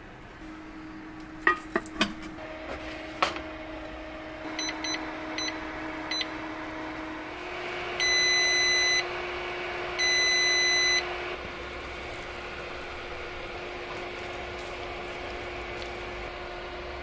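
Vermicular rice pot's induction heater base beeping: five quick short beeps as its panel is pressed, then two long beeps of about a second each. Underneath runs a steady hum, and a few sharp clinks of the cast-iron pot come before the beeps.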